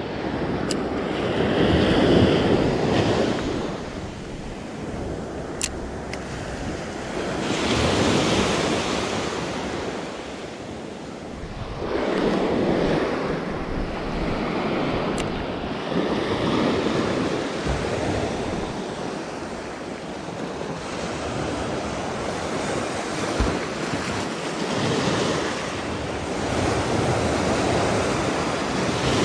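Small sea waves breaking and washing up a sandy beach, the surf swelling and ebbing every few seconds, with wind buffeting the microphone.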